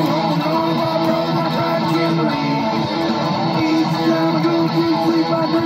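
Solid-body electric guitar picked in a continuous stream of notes, with a few notes bent so they slide in pitch.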